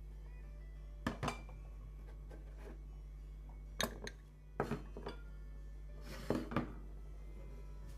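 Ceramic soup bowls clinking and knocking as they are taken out and handled: about four groups of short sharp clinks, mostly in pairs.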